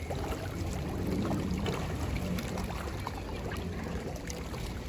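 Steady low outdoor rumble with a light hiss, and faint indistinct voices under it.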